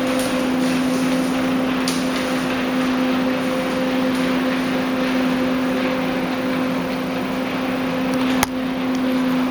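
Steady mechanical hum with a constant hiss over it, and a single sharp click about eight and a half seconds in.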